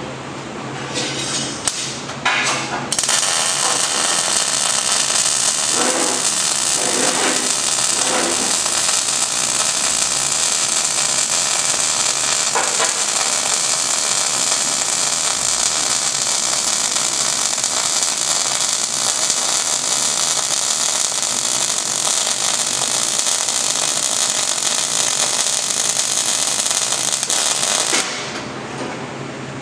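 MIG welding arc crackling and sputtering on the 3/16-inch steel body of a small wood stove. A few short starts come in the first seconds, then one continuous bead of about twenty-five seconds that cuts off suddenly near the end.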